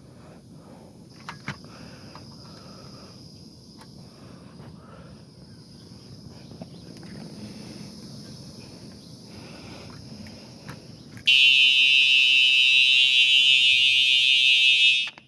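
Fire alarm horn set off by push-testing a System Sensor 4W-B smoke detector, sounding loud and steady for about four seconds from about eleven seconds in, then cutting off suddenly. Before it, only faint handling noise and a couple of clicks.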